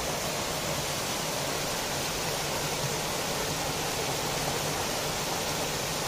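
Small waterfall pouring into a rocky pool: a steady, even rush of water.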